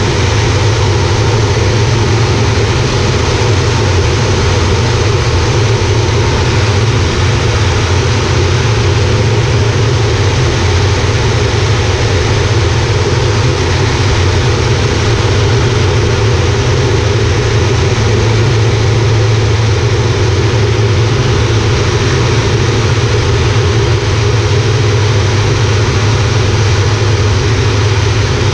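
Air Tractor 402B's Pratt & Whitney PT6A turboprop and propeller running steadily in flight, heard from inside the cockpit as a loud, even, deep drone.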